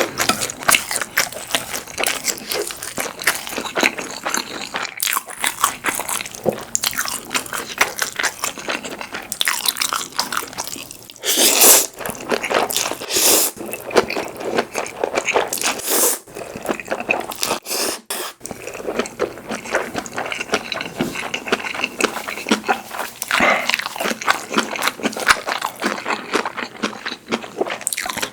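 Close-miked eating sounds: steady wet chewing and crunching of food, with a few louder bursts about halfway through.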